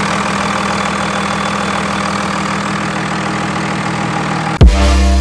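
A 24-valve Cummins 5.9-litre inline-six turbodiesel idling steadily in a Dodge Ram pickup. Near the end, loud electronic music with a heavy bass beat cuts in.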